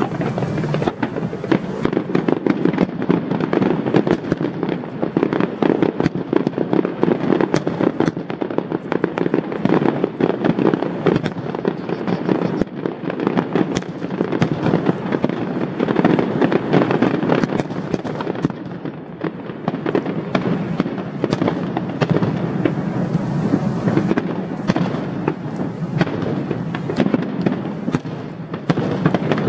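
Aerial fireworks display going off in a dense, continuous barrage: many bangs and crackling reports each second, over a steady rumble.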